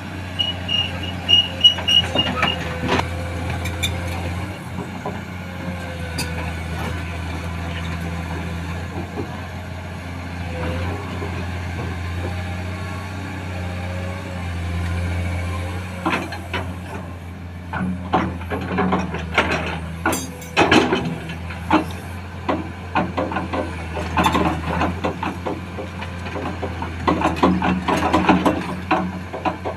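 Komatsu PC210 hydraulic excavator's diesel engine running steadily as it loads broken rock into a dump truck, with bursts of rock clattering in two spells in the second half. A quick run of high beeps sounds near the start.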